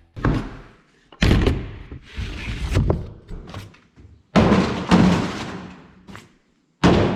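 Four separate thuds, each trailing off over a second or two, from plastic jugs of RV antifreeze being handled and emptied into a sprayer tank.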